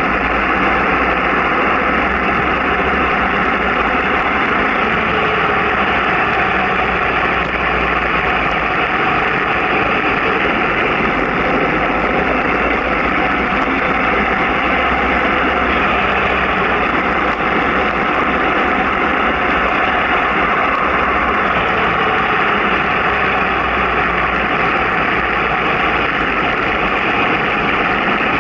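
Steady, loud rushing of wind and road noise on a camera moving downhill at about 25 to 35 km/h, with no distinct events.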